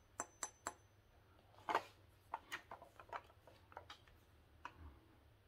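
Faint handling noise from a 12-gauge shotgun being picked up and moved: a string of light clicks and small knocks. There are three quick clicks first, a stronger knock a little later, then a scattered run of smaller clicks.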